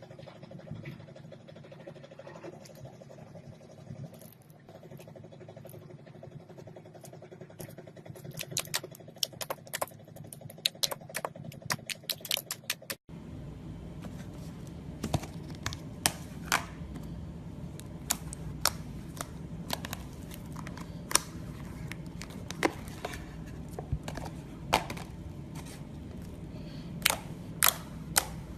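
Slime being squeezed and poked by hand, giving sharp clicks and pops as trapped air bubbles burst, over a low hum. The sound cuts off abruptly about halfway through and resumes with a louder background hiss and more scattered clicks.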